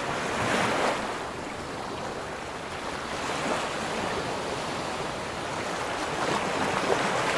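Choppy sea water sloshing and splashing against a camera held at the surface, with a few louder surges as small waves wash over it.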